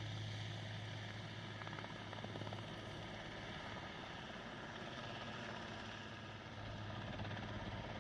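Helicopter flying off just after takeoff, a steady engine and rotor drone with a constant low hum.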